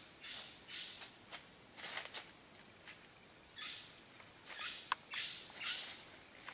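Footsteps crunching and rustling through dry leaf litter on a forest floor, about seven uneven steps with a few sharp snaps of twigs.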